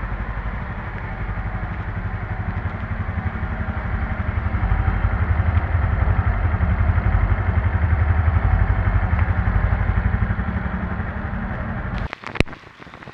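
Honda Super Cub C125's single-cylinder four-stroke engine running steadily with a low, fast pulse, swelling a little midway. It cuts off suddenly about twelve seconds in, followed by a few sharp clicks.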